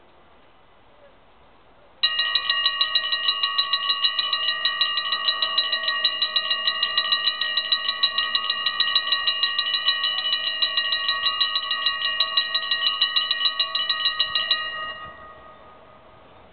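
Dutch level crossing warning bells ringing rapidly, about five strokes a second, as the half barriers lower for an approaching train. The ringing starts about two seconds in and stops shortly before the end, once the barriers are down.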